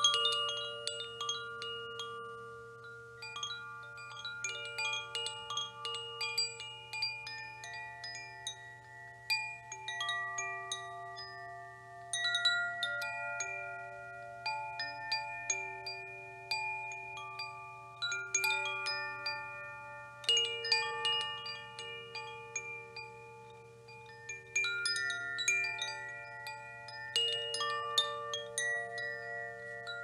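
Wind chimes ringing: irregular flurries of strikes every few seconds, their several pitched tones ringing on and overlapping.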